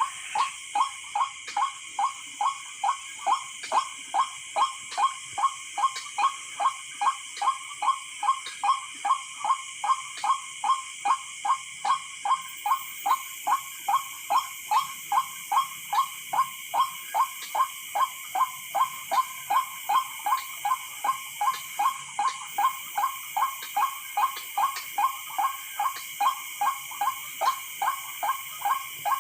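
White-breasted waterhen calls played back as a lure: a steady 'kruwok' repeated without a break about two and a half times a second, over a steady high hum of night insects.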